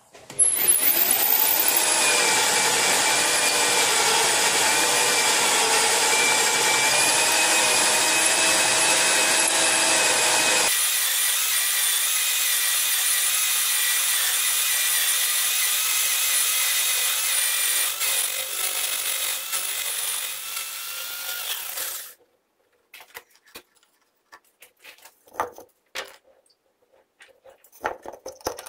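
Metal lathe drilling into a steel part: a loud, steady cutting noise with a high whine. About ten seconds in its lower part drops away, leaving a thinner high whine and hiss. It stops abruptly about 22 seconds in, followed by a few scattered clicks and knocks.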